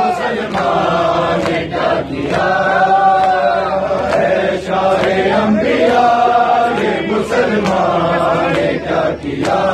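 A crowd of men chanting a noha in unison, held and wavering lines, with the slaps of hands beating on bare chests (matam) keeping time.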